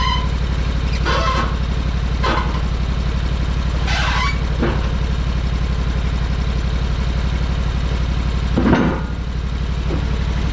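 Sawmill engine running steadily, with a few short, sharp sounds over it, the loudest near the end.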